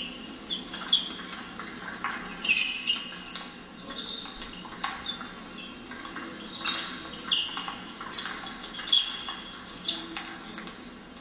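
Table tennis ball clicking back and forth in a rally, sharp irregular knocks of paddle strikes and table bounces, with short high squeaks of shoes on the sports-hall floor.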